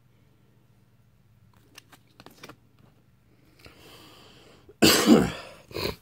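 A man coughs hard, a loud cough near the end followed by a shorter second one, after a drawn breath. A few faint clicks of handling come earlier.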